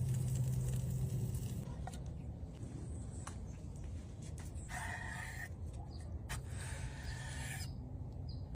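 Two drawn-out animal calls, the second longer than the first, over a low steady hum.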